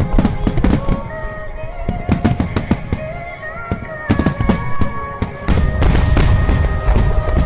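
Large aerial fireworks bursting in rapid succession, booms and crackles overlapping, with music playing underneath. About five and a half seconds in the bursts thicken into a dense, continuous barrage.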